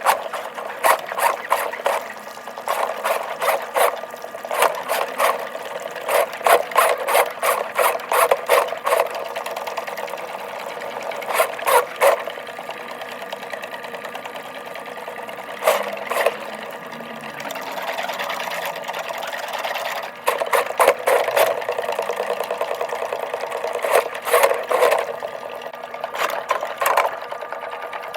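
Motorised drain-cleaning machine running, its cable clattering and rattling in bursts as it is worked into a backed-up 2-inch laundry drain line, with a steadier stretch in the middle.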